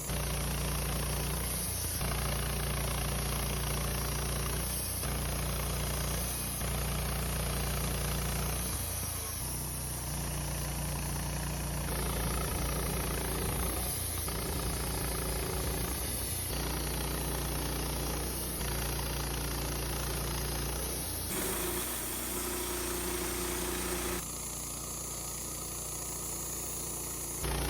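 Wood-Mizer band sawmill's engine running steadily. The sound changes abruptly every few seconds.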